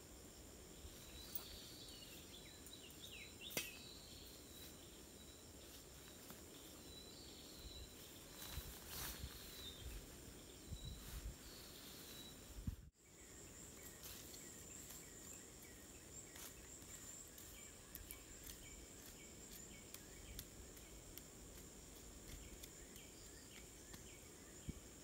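Faint forest ambience: a steady high insect drone, with short bird-like chirps in the first half and a few light clicks and rustles from gear being packed.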